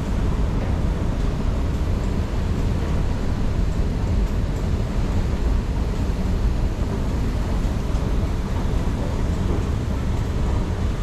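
Steady low rumble of a moving escalator carrying the rider down, mixed with the hum of the station's air handling.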